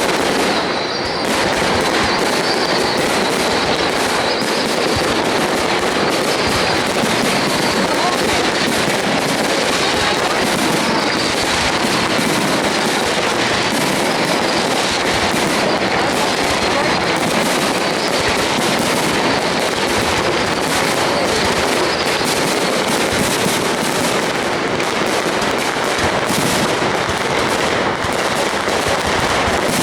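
Aerial fireworks shells bursting and crackling in rapid, unbroken succession, loud throughout, over the murmur of a large crowd's voices.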